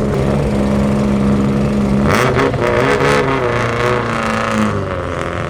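Car engine idling steadily, then revved in a few throttle blips from about two seconds in, its pitch rising and falling, before settling back to idle.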